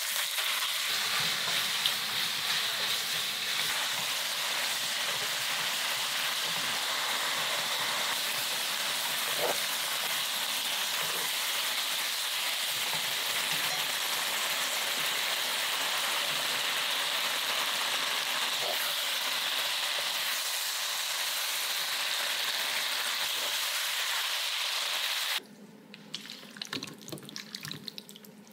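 Sliced pork sizzling steadily as it stir-fries in a pan for spicy stir-fried pork, with occasional scrapes of a wooden spatula. The sizzle cuts off suddenly near the end, leaving quiet scraping and clicks as the spatula pushes the sauced pork out of the pan onto a wooden plate.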